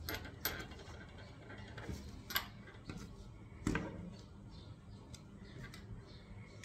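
Handling noise from a digital jump rope's plastic handles being picked up and set down on a table: four or so sharp clicks and knocks in the first four seconds, then only a few faint ticks.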